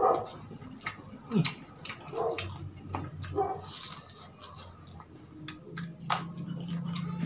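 Close-miked eating sounds: chewing of fried street food with lip smacks and scattered small clicks from fingers and food. A low steady hum starts near the end.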